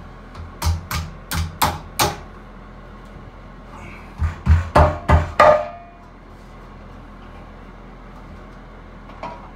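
A hand pounding a tight-fitting metal shower-door top rail into place between the walls: two runs of about five sharp knocks each, the second starting about four seconds in.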